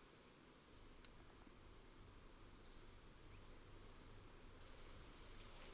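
Near silence: faint field ambience with a steady, very high insect trill and a few faint, short high chirps.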